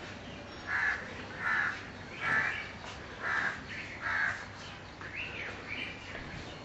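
A bird calling five times in a row, about one call a second, followed by fainter calls.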